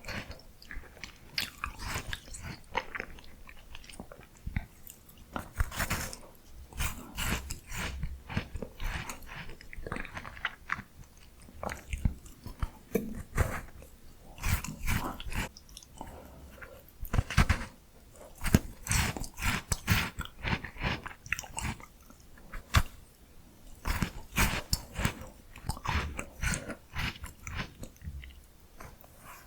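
Close-miked eating of miniature ice cream: biting and chewing, full of rapid irregular sharp crackles and clicks.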